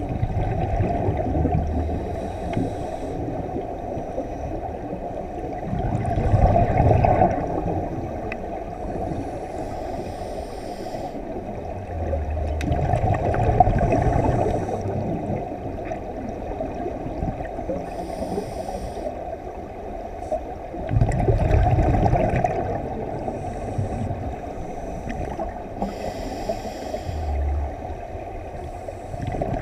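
Scuba regulator breathing heard underwater: exhaust bubbles gurgling out in surges every six to eight seconds, with a fainter hiss from the regulator between them.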